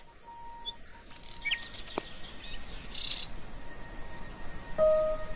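Birds chirping: scattered short, high chirps and brief trills. A steady held tone sounds under them until about a second and a half in, and another begins near the end, with a single click in between.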